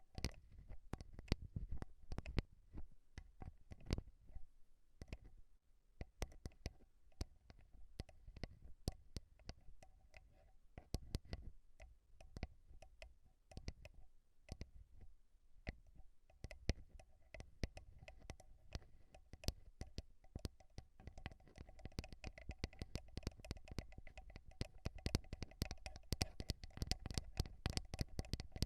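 ASMR microphone tapping: irregular soft taps and clicks right on the mic, each with a low thud, several a second, growing denser over the last few seconds.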